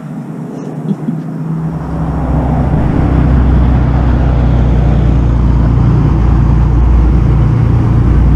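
A motor vehicle's low engine and road rumble, building up over the first couple of seconds and then holding steady and loud.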